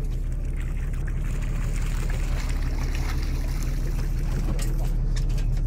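A boat's engine running steadily, with water splashing as a hooked cod thrashes at the surface and is lifted out on the line.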